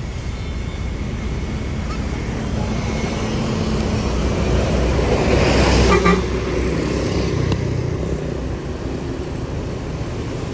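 A Mercedes-Benz intercity coach drives past close by: engine and tyre noise build to a peak as it passes about six seconds in, then fade as it pulls away. A brief horn toot sounds at the moment of passing.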